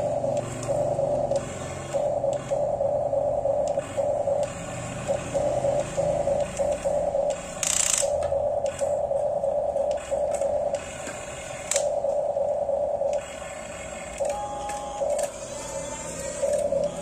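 Small electric motors of a radio-controlled construction model whirring in short stop-start runs of about a second each, as the controls are worked. A brief hiss comes about eight seconds in.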